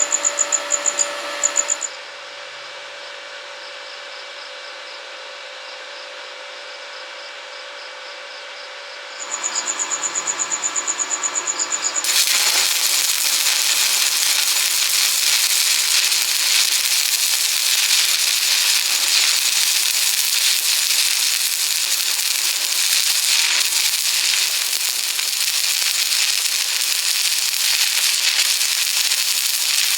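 Stick (arc) welding: the electrode arc crackles and sizzles steadily, like frying, from about a third of the way in. Before that, a fast pulsing sound with a high whine stops after about two seconds, a quieter steady hum follows, and the pulsing returns briefly before the arc strikes.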